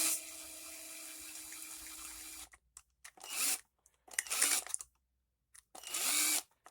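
Small power screwdriver driving screws: a steady whine that drops lower in level and stops about two and a half seconds in, then three short bursts.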